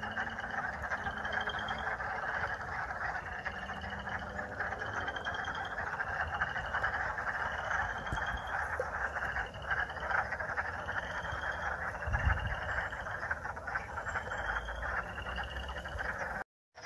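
Dense chorus of many frogs calling together, with one nearer frog repeating a short rising trill about once a second over the steady din.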